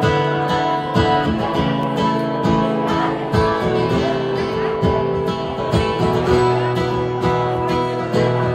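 Solo acoustic guitar strummed live, chords ringing out under a steady rhythm of strokes.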